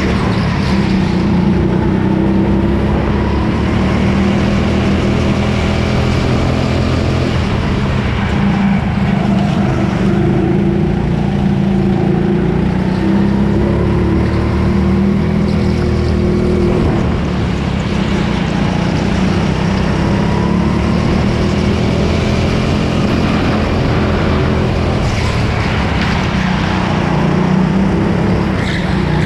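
Go-kart engine heard onboard at racing speed, its note rising and falling as the kart accelerates and lifts through the corners.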